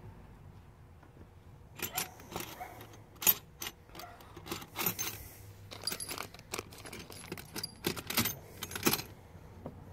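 Small steel hand tools clinking and rattling against each other as they are rummaged through and picked up by hand: an irregular run of sharp metallic clicks starting about two seconds in.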